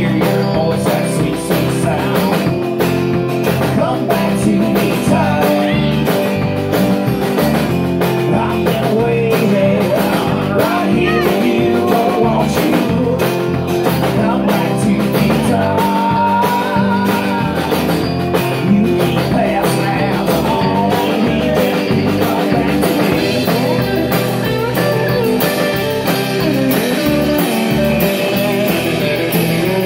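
Live band playing bluesy rock: drum kit, acoustic guitar and electric guitar and bass, with a singer.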